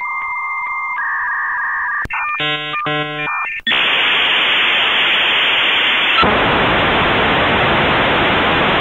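Steady electronic tones that change pitch once, then a quick run of beeping tones, then loud steady static hiss from a few seconds in, which shifts in tone a little past halfway.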